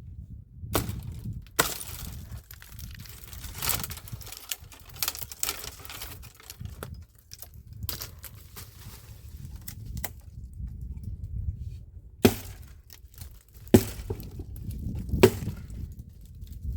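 A run of sharp cracks and snaps over the first seven seconds or so, then three louder single snaps a second and a half apart near the end, over a low rumble.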